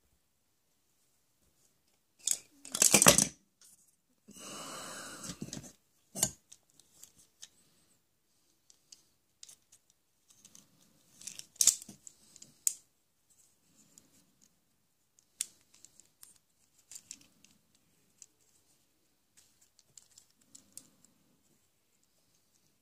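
Hands handling plastic toys and their wrapping: a loud tearing rustle about two seconds in, a steady rasp a second or so later, then scattered light clicks and taps of plastic pieces.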